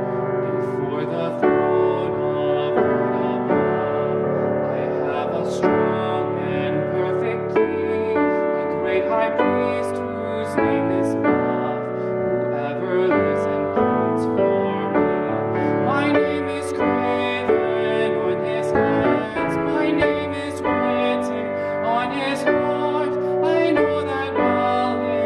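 Piano music playing, notes and chords struck at a steady, unhurried pace.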